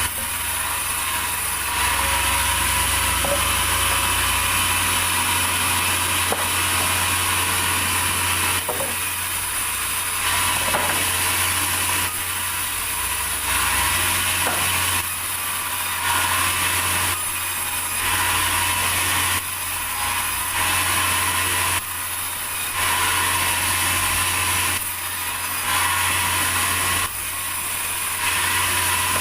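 Sawmill machinery running and sawing a large durian log, a steady mechanical drone with a low hum and a hiss from the cut, shifting abruptly in level every second or two.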